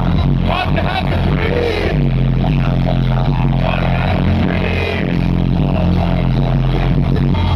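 Live rap music over an arena sound system: a heavy, steady bass line with vocals over it.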